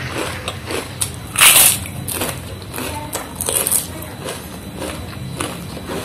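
Crunching of a freshly fried kerupuk cracker being bitten and chewed, a run of small crackles with two louder crunches about a second and a half and three and a half seconds in.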